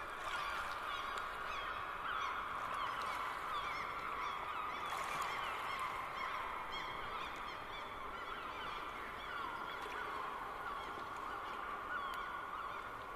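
A large flock of birds calling: many short, overlapping calls keep up a steady chorus with no pauses.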